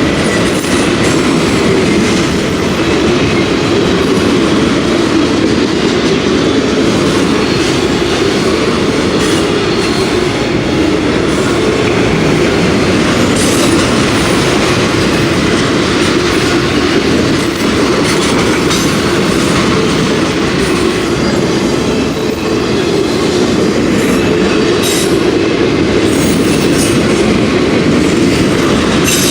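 Freight train of autorack cars rolling past, with a steady loud rumble of steel wheels on the rails and scattered clicks as the wheels cross rail joints.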